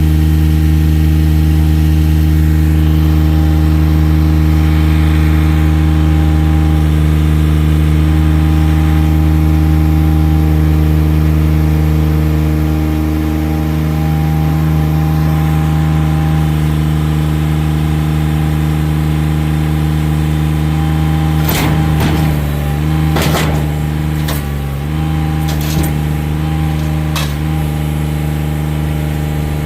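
Machine engine running loud and steady close by. Several sharp knocks and cracks come in a cluster about three-quarters of the way through, while the engine pitch dips slightly as if under load.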